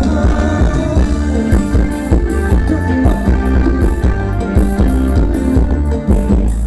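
Thai luk thung band music with heavy bass and a steady beat.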